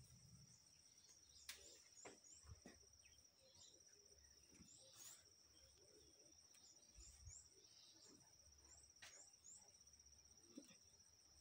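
Near silence: faint outdoor ambience with a steady high insect trill and short bird chirps in little groups of two or three, plus a few faint clicks.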